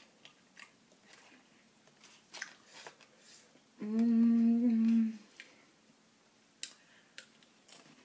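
A woman hums one steady, closed-mouth "mmm" of enjoyment for about a second and a half midway while eating chili. Around it are faint scattered clicks of a plastic spoon in a paper chili cup and of eating.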